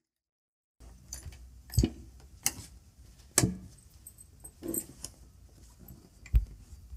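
Handling noises at a sewing machine: after a second of dead silence, about five separate knocks and clicks come a second or so apart, with small ticks between, as hands work the thread and embroidery hoop around the needle. A low steady hum sits underneath.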